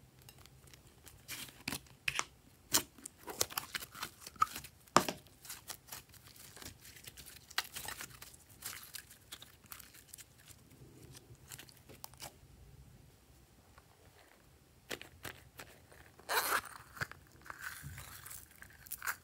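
Pink slime pulled from a plastic toy-shaped container and stretched by hand, with sticky crackling, snapping and popping. The snaps come thick in the first few seconds, thin out, and return as a dense burst of crackling about three-quarters of the way through, when the slime is pressed into the bowl.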